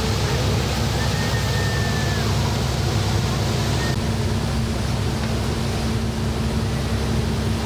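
Boat engine running steadily at cruising speed, a constant low hum under a loud rush of wind and water.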